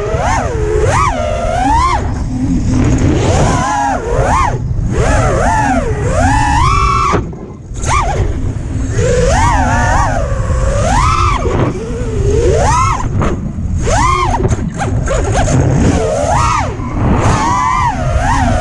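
ImpulseRC Apex FPV quadcopter's brushless motors and propellers whining, the pitch sweeping up and down again and again with the throttle, over a low rumble. About seven and a half seconds in the whine drops away briefly as the throttle is chopped, then comes back.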